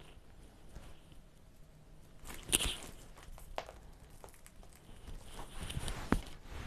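Faint handling sounds of hands working at a table: scattered light taps and clicks, with a brief rustle about two and a half seconds in and a few knocks near the end.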